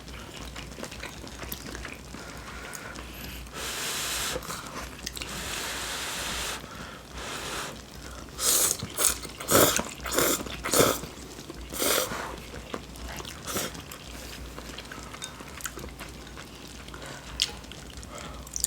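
Close-up eating sounds of Korean army stew: a long slurp, then a run of shorter, louder slurps and chewing.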